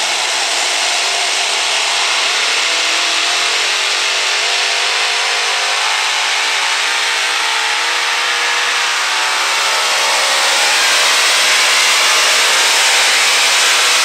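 Several engines of a multi-engine modified pulling tractor running flat out under load as it drags the sled, a loud unbroken racket whose pitch climbs slowly and grows a little louder in the second half.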